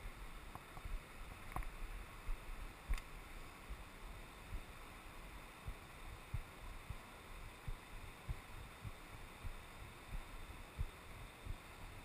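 Alpine river water flowing steadily over stones, with scattered soft knocks and a couple of sharper clicks.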